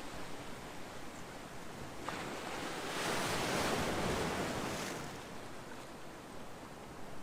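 Calm sea waves washing ashore: one wave swells in about two seconds in, peaks, then drains away after about five seconds, over a steady background wash of surf.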